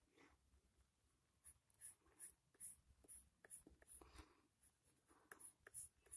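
Faint scratching of a colored pencil on an index card in short, quick strokes, about two or three a second, starting about a second and a half in, as it shades part of a drawn eye.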